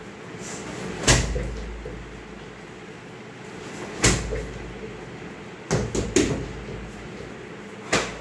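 Kicks landing on a free-standing punching bag: sharp thuds, one about a second in, one at about four seconds, a quick pair around six seconds, and one near the end, each with a short low boom after it.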